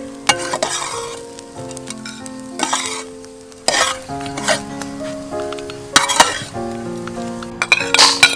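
Spatula scraping and stirring shredded smoked fish frying in a wok, with a sizzle, in several separate strokes over slow background music of held notes.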